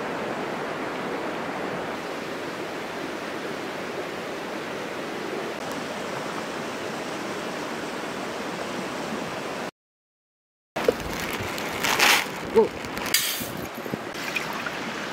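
Steady rushing of a stream running near the campsite. After a short break, a few short knocks and rustles as a pot of rice is handled.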